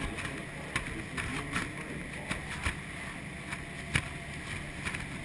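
Maid of the Mist tour boat under way: a steady rush of churning water and engine noise, broken by irregular sharp ticks, the loudest about four seconds in.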